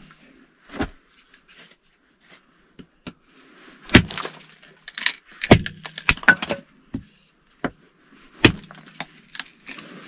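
Small hatchet chopping a short log on a chopping block to split off kindling for the stove: several sharp, irregular chops with lighter knocks between them.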